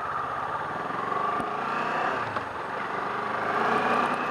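Kawasaki Ninja 650's parallel-twin engine running while riding, its pitch and loudness rising gently in the second half as the bike picks up speed.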